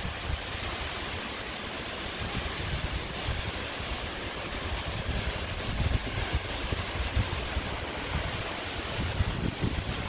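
Steady rushing of the Casca D'Anta waterfall pouring into its pool, with gusts of wind buffeting the microphone in low rumbles, most noticeably about halfway through and near the end.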